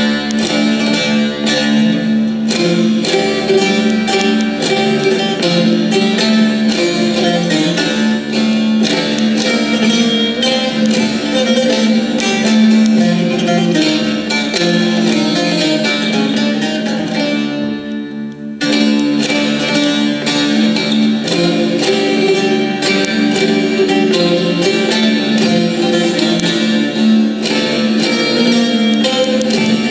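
Two bağlamas (Turkish long-necked saz) played together in an Aydın folk dance tune, with dense plucked strokes over a steady low note. The playing dips briefly about eighteen seconds in, then carries on.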